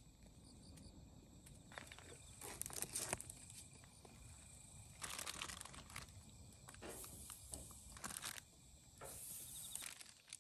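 Plastic vacuum-pack film crinkling and rustling in several short bursts as split-open dried saury are pulled out of the bag. The loudest burst comes two to three seconds in.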